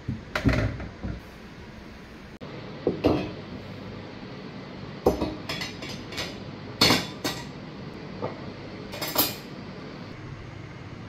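Stainless-steel kitchenware being set down and arranged: a series of separate metal clinks and knocks, some on a hard countertop.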